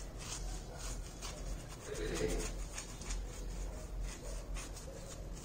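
Flat paintbrush brushing varnish over the paper-and-paint surface of an MDF clock base: soft, repeated brushing strokes, several a second. A brief low pitched sound comes about two seconds in.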